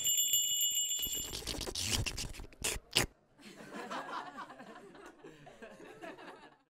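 A rough, noisy rasp for about three seconds, ending in two sharp clicks, then a voice giggling softly until the sound stops just before the end.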